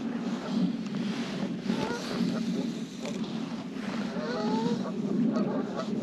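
Geese calling, several overlapping honks from about two seconds in, over a steady low drone.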